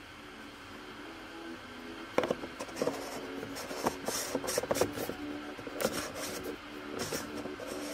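Soft background music fading in, with rubbing, scraping and clicking of a hand handling the camera close to the microphone from about two seconds in.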